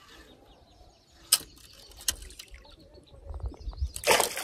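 A sharp click about a second in, then a hooked northern pike (jackfish) splashing at the surface near the end.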